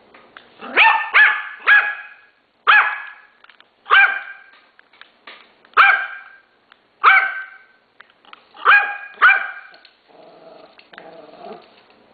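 Yorkshire terrier barking excitedly at a small remote-control toy car, about nine sharp, high barks, some in quick pairs, then a lower rough growl near the end.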